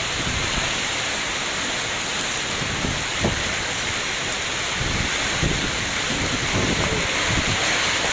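Strong storm wind blowing hard: a steady rushing noise with irregular low rumbling buffets from the wind hitting the microphone.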